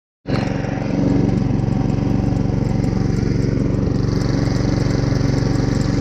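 Gas snowblower engine running steadily at a constant speed, a continuous even, pulsing drone.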